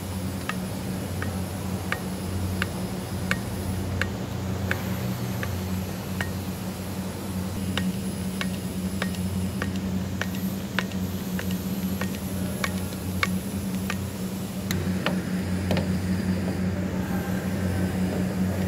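A grease gun pumping grease into a forklift's grease nipples, with short sharp clicks at each stroke, roughly one to two a second. A steady low hum runs underneath.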